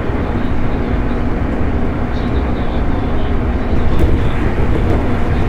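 211 series electric train running along the line, heard from inside the car: a steady rumble of wheels on rail and the moving car body, with a faint steady hum and a single sharp click about four seconds in.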